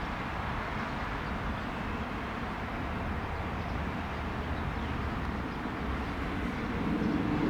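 Steady jet engine noise from the Airbus A320neo's Pratt & Whitney PW1100G geared turbofans on landing approach, growing louder near the end as a steady tone comes in.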